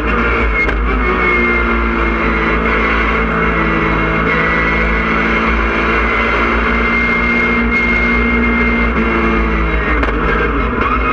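Porsche 997.1 Cup car's flat-six engine heard loud from inside the cockpit at speed on track, holding fairly steady revs with a change in pitch about half a second in and again near the end.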